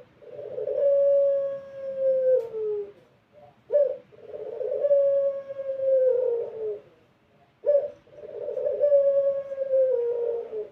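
Puter pelung, a domestic collared dove bred for its long deep coo, cooing three times. Each coo opens with a short sharp note, then a low note held for about two seconds that slides down at the end.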